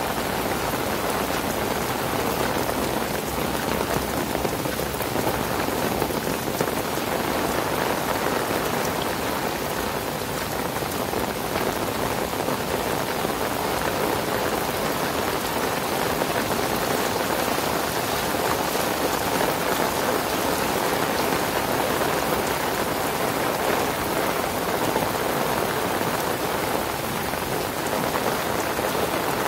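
Heavy rain falling steadily on paved paths, lawn and standing water: a dense, even hiss.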